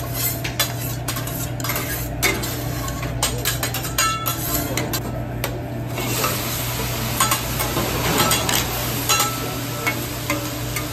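Metal spatulas clicking and scraping on a hot steel teppanyaki griddle. About six seconds in, raw vegetables are tipped onto the griddle and a loud sizzle starts, with spatula clinks through it.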